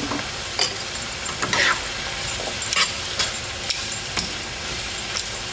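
Meat and chopped onion, bell pepper and celery frying in a pan with a steady sizzle, while a utensil stirs them and scrapes and taps against the pan about once a second.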